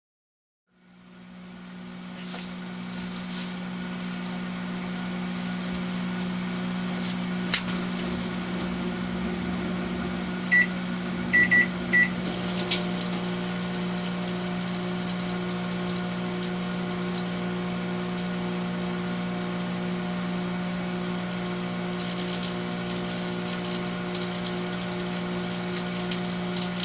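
Daewoo microwave oven switching on and running: a steady electrical hum with fan noise that swells over the first couple of seconds. Four short, high beeps come about halfway through, and scattered crackling ticks grow more frequent near the end.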